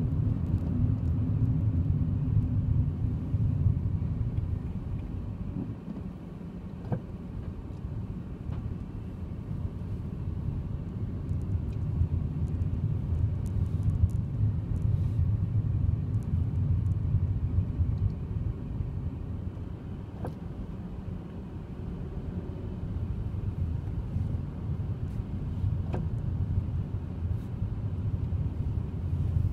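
Car driving slowly along town streets: steady low engine and road noise that softens twice for a few seconds.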